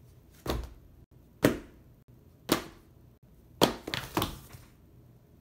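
Notebooks being set down one at a time on a wooden table: five short thuds roughly a second apart, the last two closer together.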